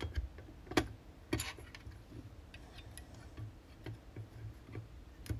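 Light clicks and taps of a Schmincke Horadam metal watercolour travel palette and its half pans being handled, a scatter of short ticks with the sharpest about a second in.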